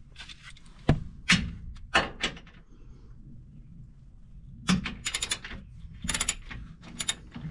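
Ratchet with a 12 mm socket undoing skid-plate bolts. Its pawl clicks in two short, rapid runs about two thirds of the way in, with a few single knocks and clicks before them.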